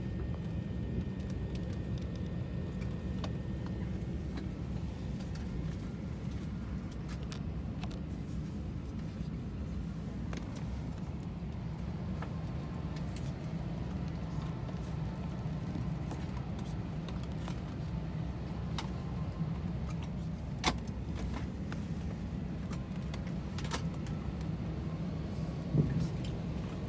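Airliner cabin ambience at the gate: the Airbus A320neo cabin's steady low air-conditioning hum, with scattered small clicks, a sharp click about two-thirds of the way through and a short thump near the end.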